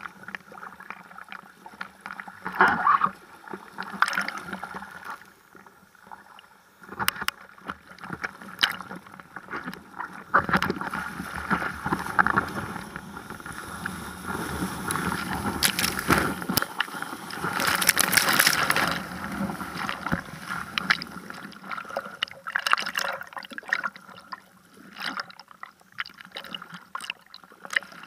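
Seawater sloshing, gurgling and splashing right at a camera held at the surface beside a bodyboard, with irregular crackling droplet hits. Longer, louder rushes of water come about halfway through and again about two-thirds of the way through.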